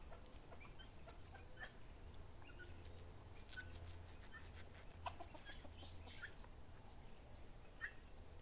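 Faint chicken clucking, with short calls scattered irregularly.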